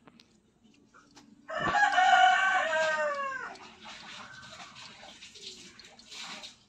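A rooster crowing once, a long call of about two seconds that falls in pitch at the end, followed by fainter scratchy noise.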